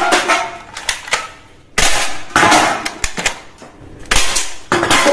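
Toy gun firing: a series of sharp, shot-like bursts at irregular intervals, each fading quickly.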